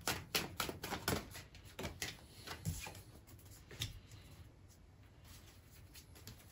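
Tarot cards being handled, a quick run of soft flicks and snaps over the first four seconds or so, thinning out toward the end.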